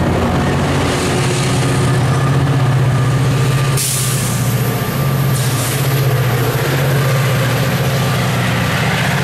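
Metrolink commuter train's diesel locomotive running steadily as it pushes the train out of the station. Short hisses of air come about four seconds in and again around five and a half seconds, as the locomotive passes.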